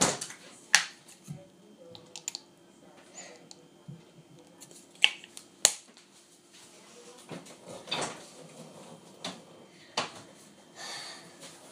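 Scattered sharp clicks and light knocks from a bottle and items in an open fridge being handled, a handful of separate hits, the loudest a little under a second in and about five seconds in.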